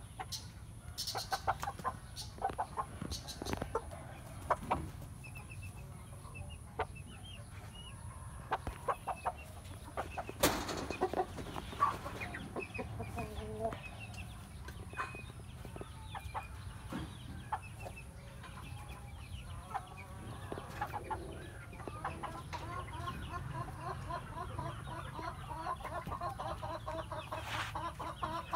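Chickens clucking, with a long run of rapid clucks in the last third and scattered short knocks and scrapes earlier on.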